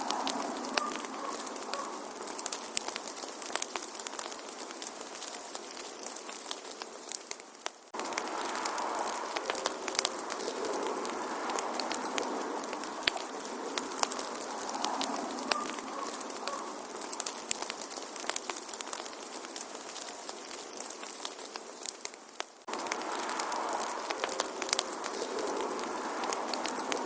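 Wood fire crackling in a fireplace: a steady hiss dotted with frequent sharp snaps and pops. Twice the sound sags and then cuts back in sharply, about 15 seconds apart.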